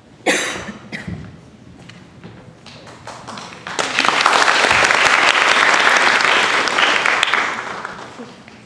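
Audience applauding: clapping swells up about four seconds in, holds for a few seconds and dies away near the end. A single sharp bang is heard just before that, about a third of a second in.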